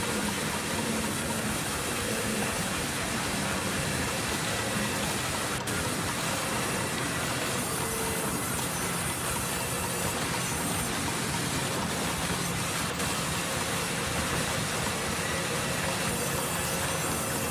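Vertical band sawmill running steadily, its blade ripping lengthwise through a log.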